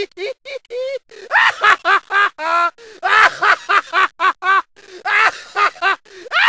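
A high-pitched voice giggling and babbling in rapid, short syllables whose pitch swoops up and down.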